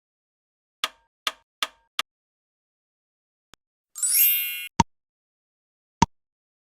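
Sharp clicks and pings against dead silence, as edited-in sound effects: four quick ones about a second in, a brief sweep rising in pitch about four seconds in, then single clicks.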